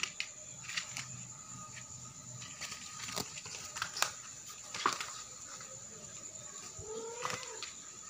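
Kittens scuffling on a vinyl floor and batting at plastic artificial flowers: scattered soft taps, scrapes and rustles, a few sharper clicks among them.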